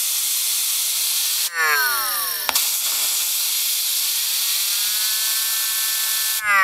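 Compressed air hissing in two long bursts as it spins a hard-disk platter, with a tone of several pitches coming from a small horn tweeter fed by the drive's spindle motor working as a generator. The tone falls in pitch when the air stops, about one and a half seconds in and again near the end, as the disc spins down. It rises and levels off while the air is blowing.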